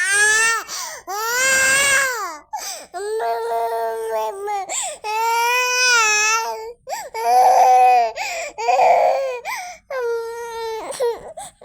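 Young child crying hard: about seven long, high-pitched wails, each a second or two, broken by short gasping breaths. The child is ill with fever and a cold.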